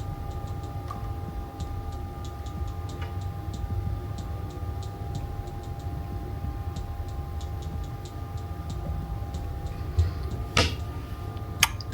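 Light, irregular ticking clicks over a steady low hum with faint steady tones, and two sharper knocks near the end.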